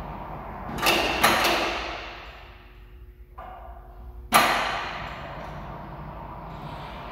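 Overhead crane's electric chain hoist lifting steel weight blocks: a few sharp metal clanks about a second in and one loud bang a little after four seconds, each ringing and fading, over the hoist's steady running hum.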